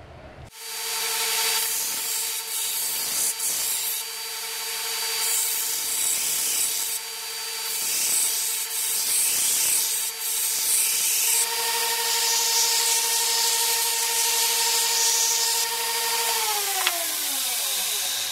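Belt grinder running with a steel damascus knife blade pressed against the abrasive belt, a grinding hiss that swells and eases over a steady motor hum. Near the end the hum falls in pitch as the grinder winds down.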